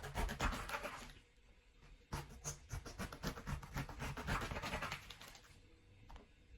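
Kitchen knife sawing and scraping through pineapple rind, a quick run of scratchy strokes for about a second, then a longer spell of about three seconds after a short pause.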